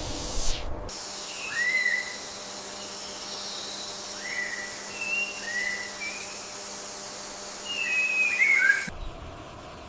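An animal's short whistled calls, each rising then levelling off, about six spread over several seconds, with a longer run near the end that falls in pitch.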